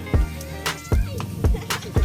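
Background music with a steady drum beat and bass line, in a hip-hop/R&B style.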